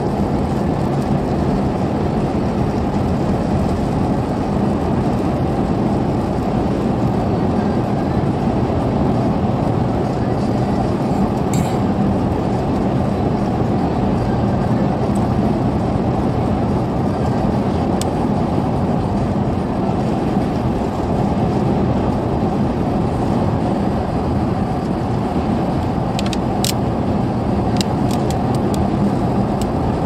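Steady road and tyre noise of a car at highway speed, heard from inside the cabin, with a few faint clicks late on.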